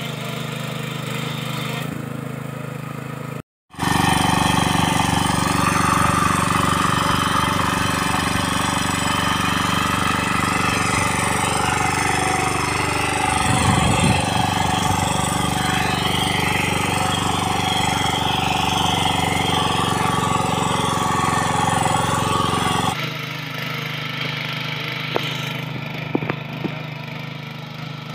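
Small engines of walk-behind power weeders and tillers running steadily under load, over several clips. The sound drops out for a moment a few seconds in, and is louder from then until near the end.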